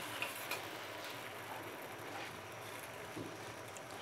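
Faint steady sizzle of egg-and-vegetable paratha batter cooking in a lightly oiled frying pan over a medium gas flame, with a couple of light clicks in the first second.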